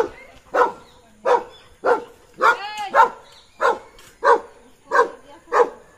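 German Shepherd barking steadily and repeatedly, about ten barks at an even pace of roughly one and a half a second, at a golden retriever she has just spotted. About halfway through, a high whine rises and falls between the barks.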